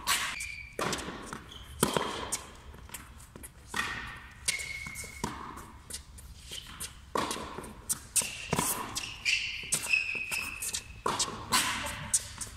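Tennis rally on an indoor hard court: a string of sharp racket hits and ball bounces about once a second, echoing in the hall, with short high squeaks of shoes on the court.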